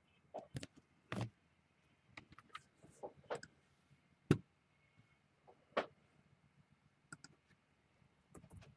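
A dozen or so scattered light clicks and taps, irregularly spaced, with one sharper tap about four seconds in.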